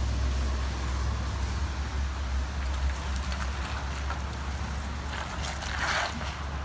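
Lifted Chevrolet Silverado pickup driving slowly past on wet pavement: a steady low engine rumble with tyre hiss. About six seconds in, a louder hissing rush comes as its tyres roll through standing water.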